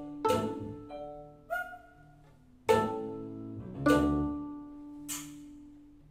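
Music: plucked string notes played pizzicato with an accompaniment. Notes start sharply about every second and a quarter, and each rings and fades.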